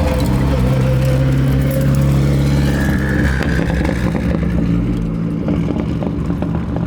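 Car engine running with a steady exhaust note, easing off a little after about four seconds.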